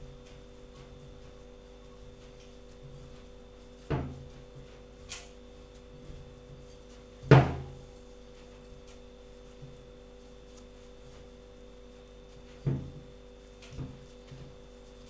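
Dull knocks from hands working pizza dough in a glass mixing bowl on a table, a handful of separate thumps with the loudest about seven seconds in. A steady low hum runs underneath.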